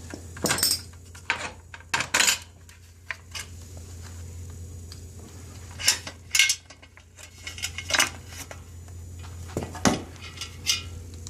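Irregular clinks and clanks of small metal and plastic parts as a Samsung TV's loose stand base is taken apart and pieces fall out; the base's plastic washer is breaking. About a dozen sharp knocks come at uneven gaps, over a steady low hum.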